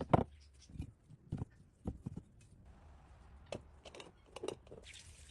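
Scattered knocks and clicks from hands handling utensils and vegetables while making cucumber pickles, irregular and a few per second, the loudest right at the start, over a low steady hum.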